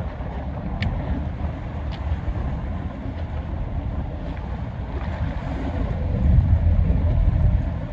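Wind buffeting the microphone over a choppy sea: a steady low rumble that grows louder about six seconds in.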